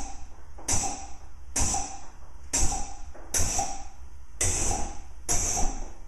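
DMX-controlled propane (LPG) flame generators fired in quick short bursts, giving little pops of flame. There are about six, roughly one a second, each a sharp rush of gas that fades within about half a second.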